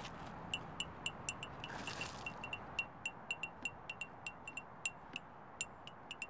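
Small metal chime tinkling: quick, unevenly spaced high pings of one pitch, several a second, starting about half a second in, over a faint steady background hiss.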